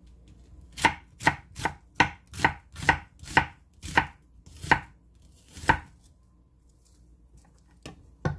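Chef's knife slicing an onion into strips on a thick wooden cutting board. About ten quick knocks of the blade on the board over five seconds, then a pause and two more strokes near the end.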